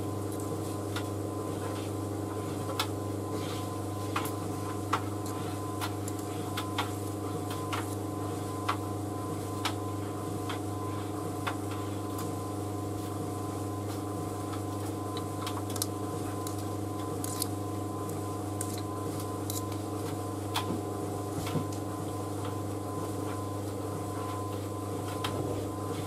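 White Knight C38AW compact vented tumble dryer running with a steady motor hum as the drum turns the laundry, with light clicks now and then, in the cooling-down stretch at the end of its cycle.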